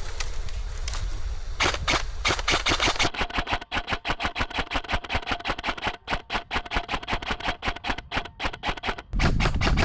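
Airsoft gun firing in rapid, sustained automatic strings of sharp cracks, about eight shots a second, starting about a second and a half in and stopping near the end.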